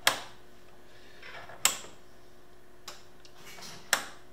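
Three sharp mechanical clicks, about two seconds apart, from the HP 3438A multimeter's switches as it is worked by hand, with a faint steady hum underneath.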